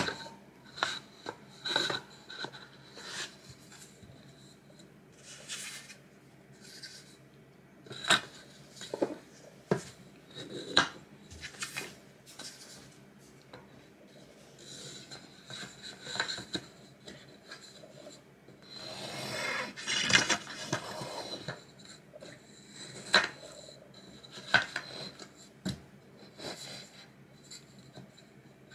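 A black metal wire shelf frame and its board shelves being handled and fitted together: scattered clicks and light knocks of metal wire on board, with a longer stretch of rubbing and scraping about two-thirds of the way through.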